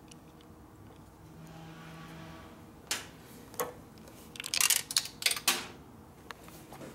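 Small metal hardware and tools being handled: a couple of sharp clicks, then a quick run of metallic clinks and rattles in the middle, as when rummaging for a bolt.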